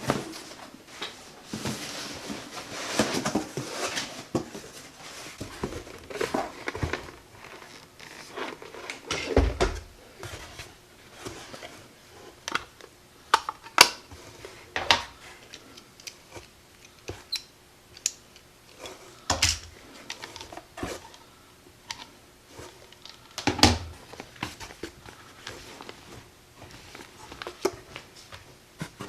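Objects being rummaged through by hand: irregular rustling and crinkling with scattered sharp knocks and clicks.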